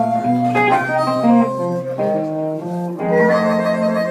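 Live blues band playing: amplified harmonica holding and bending sustained melody notes over a hollow-body electric guitar and an electric bass line.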